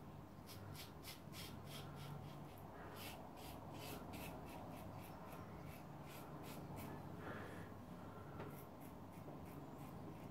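Edwin Jagger double-edge safety razor with a Kai blade scraping stubble through shaving lather in short quick strokes, about three a second, thinning out near the end.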